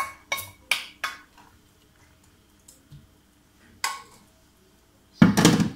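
A metal saucepan being scraped out with a wooden spatula and knocked against a frying pan: four quick clanks with a short ring in the first second and another about four seconds in. A louder, longer thump comes near the end.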